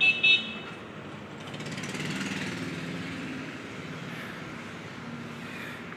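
A motor running in the background, a steady low hum that grows louder about two seconds in and then eases off. A brief high-pitched squeal comes at the very start.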